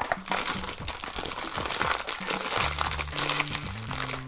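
Silver foil wrapper crinkling and crumpling in the hands as a blind-box vinyl figure is unwrapped.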